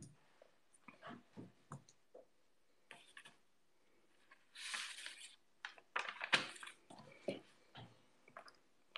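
Soft handling noises close to the microphone: scattered light clicks and taps, a short rustle about five seconds in, and a brief cluster of sharper clicks about a second later.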